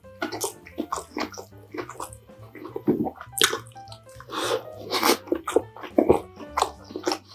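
Close-miked eating sounds: wet, irregular chewing and mouth smacks of someone eating dumplings, over quiet background music.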